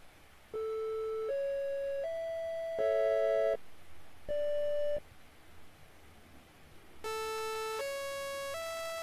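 Synthesized electronic tones from a browser-based equal-temperament composer. First a soft triangle wave plays three rising notes, the same three together as a chord, and a single note. About two seconds of quiet follow, and then the same rising notes return as a brighter, harsher sawtooth wave.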